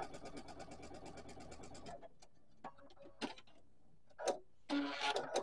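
Sewing machine stitching a seam, a rapid even run of stitches that stops about two seconds in. After that come a few faint clicks and a short rustle as the fabric is handled.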